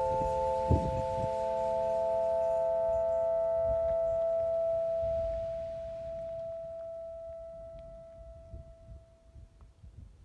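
A chord of bell-like metallic ringing tones, held and slowly dying away until it fades out near the end. A low thump comes about a second in.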